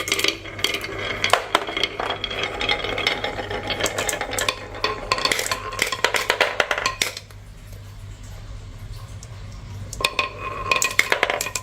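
Marbles rolling and clacking down a marble run, a dense clatter of clicks that stops about seven seconds in and starts again briefly near the end. A steady low hum sits underneath.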